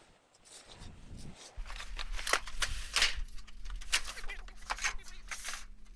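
Sheet-metal roofing being handled, with rapid clicks, scrapes and rattles. A steady low hum comes in abruptly about a second and a half in.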